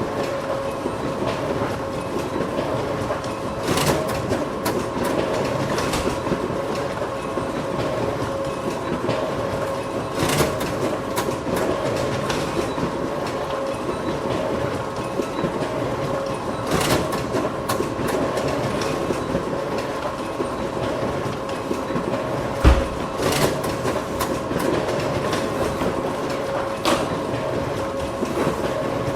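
Photocopier running steadily, a mechanical whirr with a steady hum, broken by sharp clicks every few seconds and one low thump about three quarters of the way through.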